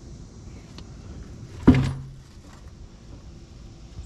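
A single loud knock, followed by a short low ring, a little under halfway through.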